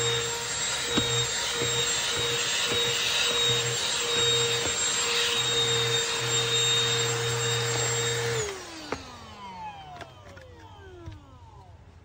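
Shark UltraCyclone handheld vacuum running steadily with a high motor whine as it sucks over car carpet. About two-thirds of the way through it is switched off and the whine falls away as the motor spins down.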